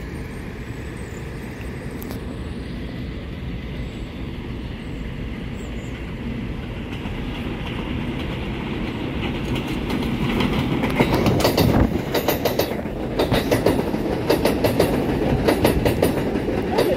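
R188 subway train on the elevated IRT Flushing Line approaching and then passing close by, its running noise growing steadily louder through the first ten seconds. From about eleven seconds in, the wheels clatter rapidly over the rail joints as the cars go by.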